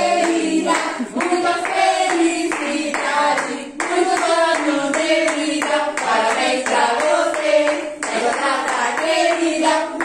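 A group singing a birthday song while clapping hands along in rhythm.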